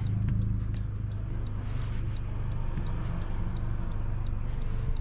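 Honda Civic Si's 1.5-litre turbocharged four-cylinder engine running at a steady pitch while driving, heard inside the car. A regular light ticking sounds over it.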